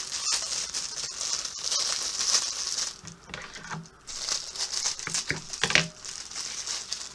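Plastic pop tubes being stretched and twisted, a crinkly ratcheting rush with clicks in two spells, the second starting about four seconds in.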